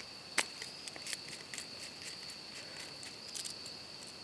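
Steady high-pitched insect chirring in the background, with a few small sharp clicks of the plastic plug and its screws being handled, the sharpest about half a second in.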